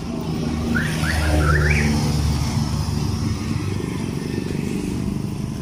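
Motorcycle engine passing close by, loudest about a second and a half in, then easing off as it pulls away, over steady road traffic.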